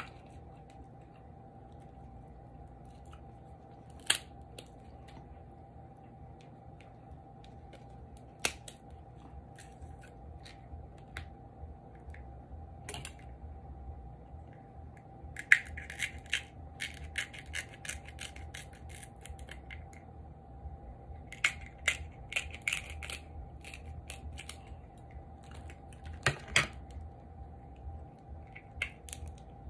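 Crab leg shells cracking and snapping as they are broken open and pulled apart by hand: scattered sharp clicks and crackles, coming in quicker clusters in the second half. A steady faint hum runs underneath.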